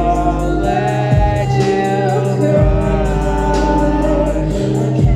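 Live singing: a woman's voice holds long, drawn-out notes into a microphone over an electronic backing with a deep bass and a steady ticking beat. The bass drops out briefly about two seconds in.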